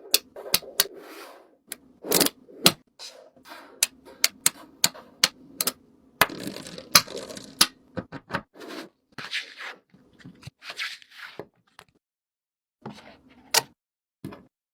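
Fidget toys handled close up: a string of sharp plastic clicks and snaps, irregularly spaced, with rubbing and scraping between them and a brief pause near the end.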